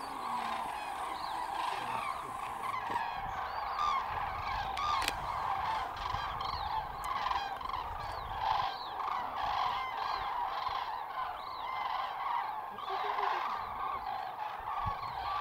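A large flock of common cranes calling in flight, a continuous chorus of many overlapping trumpeting calls as the birds fly in to their night roost.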